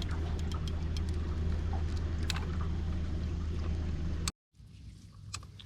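Boat motor idling with a steady low hum and a few light clicks. It cuts off abruptly about four seconds in, leaving only faint background noise.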